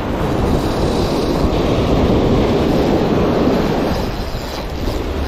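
Shallow ocean surf washing and foaming in the swash zone: a steady rushing that swells in the middle and eases near the end, with a low rumble of wind on the microphone.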